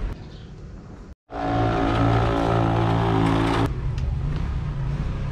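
A steady engine hum. It drops out briefly just after a second in, comes back louder and evenly pitched for a couple of seconds, then settles into a lower, quieter hum.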